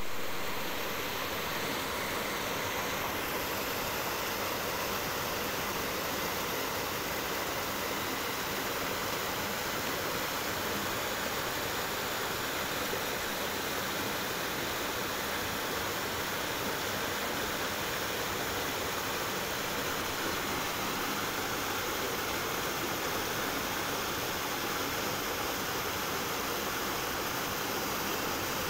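Shallow rocky mountain stream rushing steadily over stones and small cascades.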